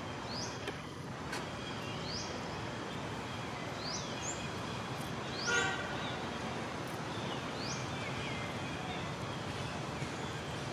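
Outdoor ambience: steady background hiss with a short, high, upward-sweeping call repeated about every two seconds, typical of a bird, and one louder, buzzier call about five and a half seconds in.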